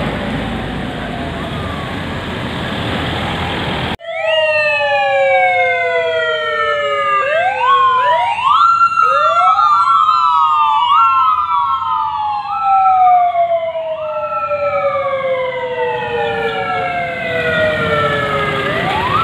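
Street traffic noise, then from about four seconds in several convoy sirens sounding together, each tone sliding slowly down in pitch and jumping back up, overlapping out of step with one another.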